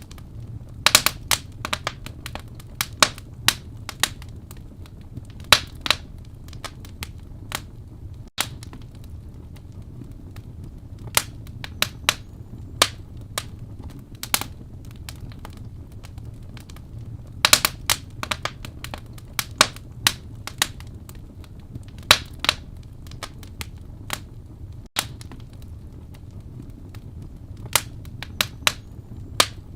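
Wood fire burning in a fireplace, crackling with irregular sharp pops, some in quick clusters, over a steady low rumble of the flames.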